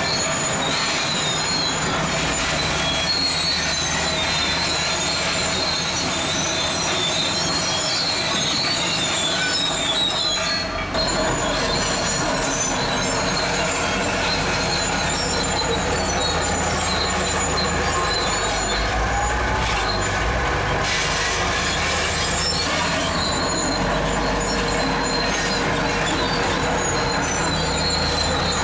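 Zoomlion crawler bulldozer working, its diesel engine running under a steady high squeal from the steel tracks. The engine's low rumble grows heavier after about eleven seconds.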